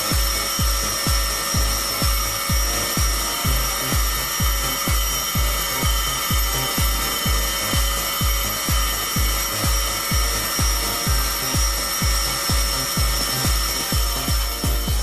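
Electronic dance music with a steady kick drum about two and a half beats a second, over the steady whine and grinding of an automated deburring and grinding machine. The machine sound cuts off suddenly near the end while the music carries on.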